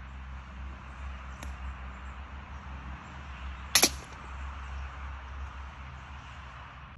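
Golf ball struck by a distant golfer's club with a faint click, then about two and a half seconds later a single loud sharp knock as the ball comes down close by at the green. Steady wind noise on the microphone runs underneath.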